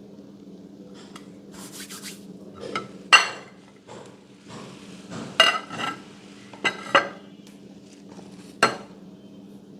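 Slime being squeezed and pressed, giving a handful of irregular sticky pops and clicks over a steady low hum.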